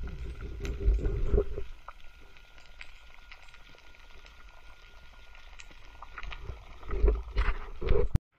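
Muffled underwater sound heard through a camera's housing: bursts of water rushing and bubbling at the start and again about seven seconds in, with a quieter hiss and faint scattered clicks between. The sound cuts off suddenly just before the end.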